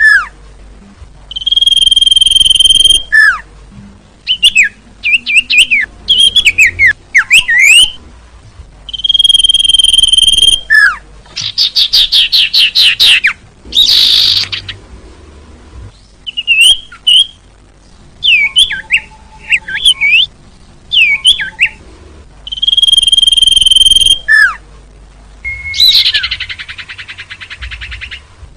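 Common iora (sirtu) calling: long steady whistles, each about a second and a half and ending in a short down-slurred note. These alternate with quick twittering slurs and a few harsh buzzy rattles, one about halfway through and one near the end.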